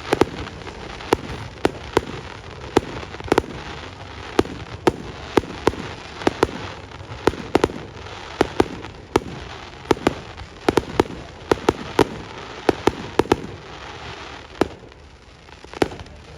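Fireworks display: a rapid, irregular run of sharp bangs from shells bursting, about two or three a second, with continuous noise between them. The bangs thin out briefly near the end.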